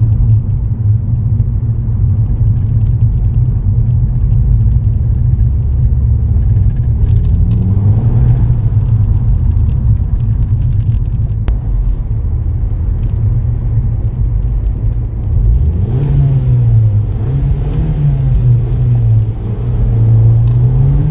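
Volkswagen Golf MK5 GTI's turbocharged 2.0-litre four-cylinder and R32-style exhaust, heard from inside the cabin while driving: a steady low drone, quite quiet. The revs climb about eight seconds in, and from about sixteen seconds they rise and fall several times.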